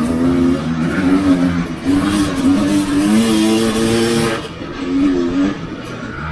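Enduro dirt bike engine revving up and down while ridden, its pitch rising and falling with throttle and gear changes, with a rushing hiss over it for a couple of seconds mid-way.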